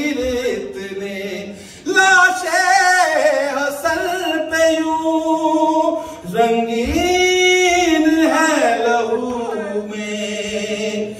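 A man's unaccompanied voice reciting in a melodic chant, drawing out long held notes that slide up and down in pitch, in a few phrases with short breaths between them.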